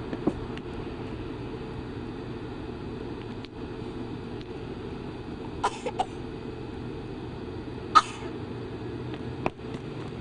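A few short, cough-like vocal sounds from a person, twice close together about halfway through and the loudest about eight seconds in, over a steady background hiss.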